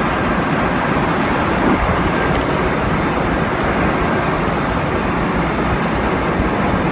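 Steady, loud din of factory machinery from a sauce factory's bottle-making line, a constant dense hum and rush with no breaks.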